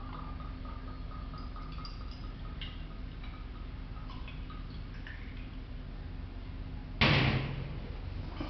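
Liquid poured from a glass bottle into a glass test vessel, a faint trickle with small clinks of glass. About seven seconds in comes a single loud knock as the bottle is set down on the table.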